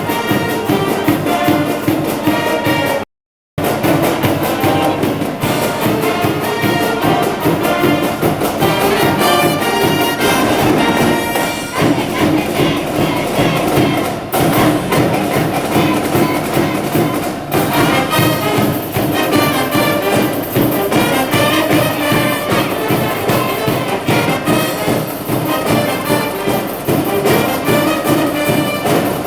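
School brass band playing a high-school baseball cheering song, brass over a steady drum beat. The sound cuts out completely for a split second about three seconds in.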